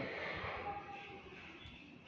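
Faint room tone: a low, even background hiss that fades slowly, with no distinct sound.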